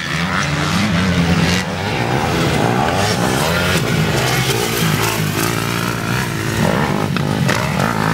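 Motocross dirt bike engines racing on a dirt track, revving up and dropping off again and again as the riders work the throttle. Several engine notes overlap, rising and falling in pitch.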